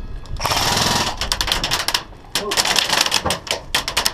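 Airsoft electric rifle firing a short full-auto burst about half a second in, a fast rattle of shots lasting about half a second. Irregular clicks and rattles follow from about two seconds on.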